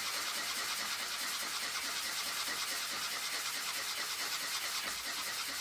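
Sanding block rubbed in quick back-and-forth strokes over a 3D-printed plastic part, a steady scratchy rasp. It is wearing down a bubbled-up surface layer to bring it flush.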